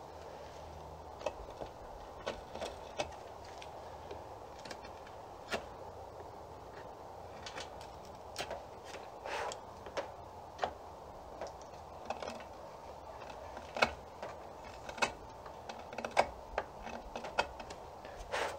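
Pocket knife blade paring small shavings off an Osage orange bow stave around a knot: irregular short clicks and scrapes, sparse at first and coming quicker and louder in the second half.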